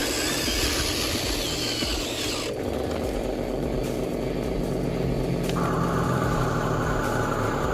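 Electric motors and plastic gears of radio-controlled Huina model construction vehicles whirring, with the sound changing abruptly about two and a half seconds in. A steady higher whine joins about two seconds later.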